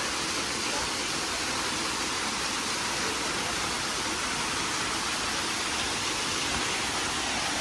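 Steady, unbroken rush of flowing water at a rainforest stream.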